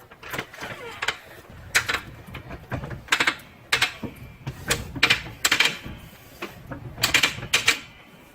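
A car jack being worked to raise the van's rear suspension back up. It gives a series of sharp metallic clacks, one with each stroke, at an uneven pace of roughly one every half second to second.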